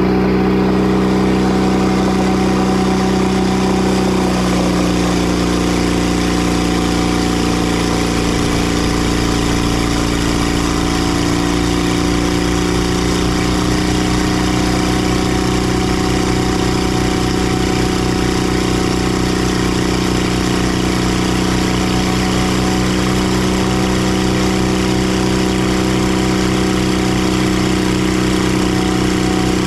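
Engine of a Timber Harvester bandsaw mill running steadily, its tone shifting slightly about four seconds in and again around eleven seconds.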